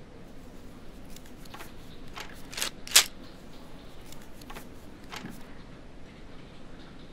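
Papers and notebooks being handled and gathered up from a table: a run of short rustles and taps, with one much louder sharp one about three seconds in.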